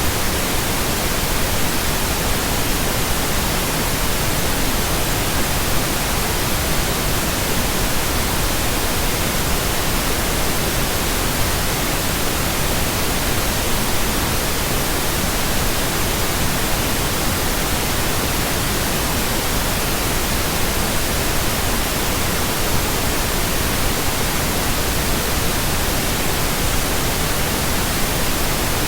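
Steady synthetic pink noise: an even, unchanging hiss across the whole range from deep to high.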